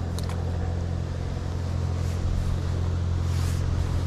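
A steady low mechanical hum, like an engine running, with a few small clicks just after the start and a brief rustle about three seconds in.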